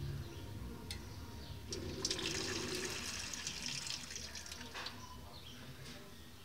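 Water running from the outlet tubes of a water vending machine's reverse-osmosis membranes, loudest between about two and four seconds in, over a low steady hum.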